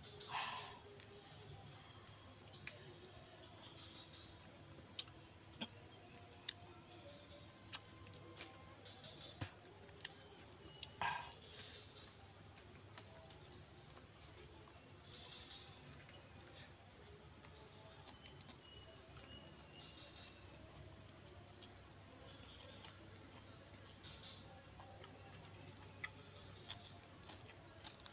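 Steady insect chorus, a continuous high-pitched shrill trill typical of crickets in an open field. Two short, louder sounds come about half a second and eleven seconds in, with a few faint ticks between.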